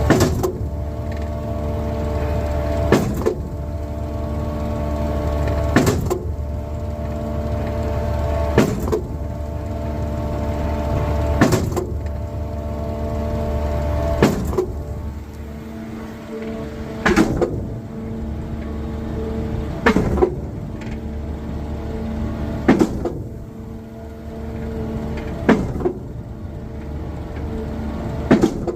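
2011 KCP 58 m concrete pump truck running, its engine humming steadily under load. About every three seconds a sharp clack comes, about ten in all, typical of the pump's valve shifting at each change of piston stroke while pumping.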